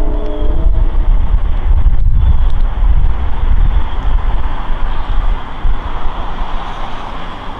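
Budd M-3 electric multiple-unit commuter train running away into the distance, a steady rumble and rail noise, mixed with wind buffeting the microphone.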